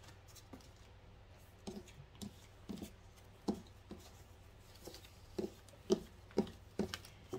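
Tarot cards being picked up from a tabletop and stacked by hand: a run of light, irregular taps and slides, with sharper taps coming more often in the second half.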